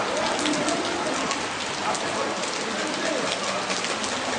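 Steady rain falling on hard surfaces, with many sharp drop ticks close by and faint voices underneath.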